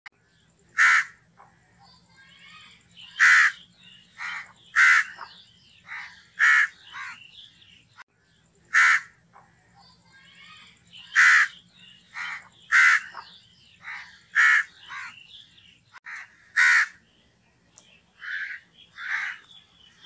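House crow cawing over and over: loud, harsh caws about one to two seconds apart, with quieter calls in between.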